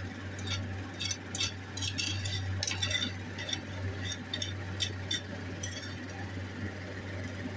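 Light, irregular clinks and taps of small hard metal pieces being handled on a workbench, over a steady low hum.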